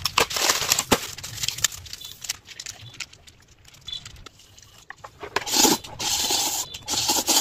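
Plastic instant-noodle packets crinkling and being torn open, with scattered crackles and clicks, then noodles slurped and chewed near the end.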